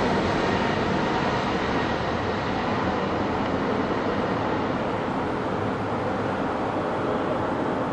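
Airbus A330 twin-engine jetliner on landing approach with its gear down, flying away: a steady jet roar that slowly fades as it recedes.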